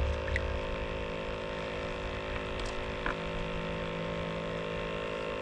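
A steady, even hum made of several constant tones, with a few faint clicks.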